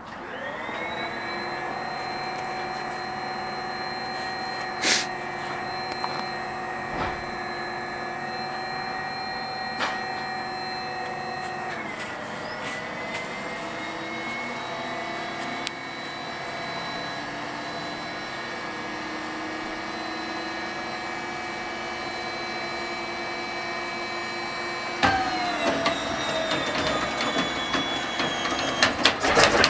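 The starter of an Il-14's left Shvetsov ASh-82T radial engine whines steadily as it runs. About twenty-five seconds in its pitch drops and irregular knocking and rumbling set in as it takes up the load of turning the engine over, growing louder near the end.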